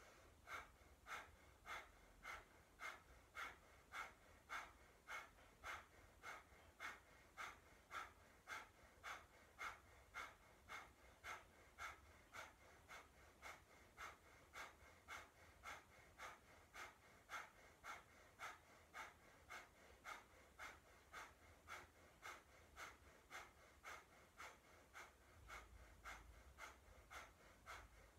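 Breath of fire: a person's quick, even, forceful breaths through the nose, about two a second, held steady throughout.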